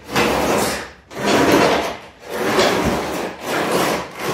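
Heavy wooden pallet planter box shoved in repeated pushes across a gritty concrete floor, scraping about four times, each stroke just under a second long with short pauses between.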